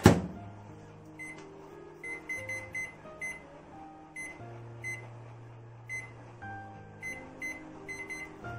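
Microwave oven door shut with a knock at the start, then a series of short, high keypad beeps, in quick clusters, as the buttons are pressed to set the cooking time.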